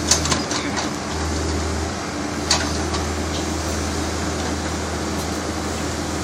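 Backhoe engine running steadily as the machine moves, with a few short sharp cracks just after the start and a louder one about two and a half seconds in.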